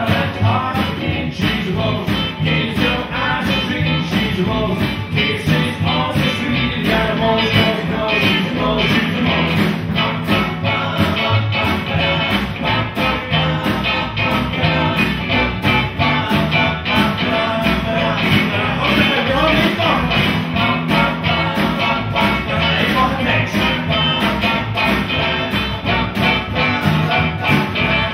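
Live rock and roll trio playing: hollow-body electric guitar, upright bass and drum kit, with a steady drum beat throughout.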